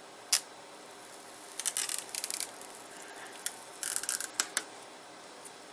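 Handling noise from an iMac's display panel being lifted from its frame: a sharp click, then two short spells of crackly scraping with a few ticks.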